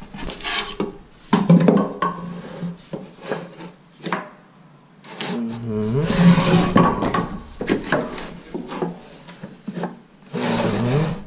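A small piece of wooden flooring plank scraped and rubbed against the wooden stair as it is worked into place at the corner of a step, in several short bouts of wood-on-wood scraping.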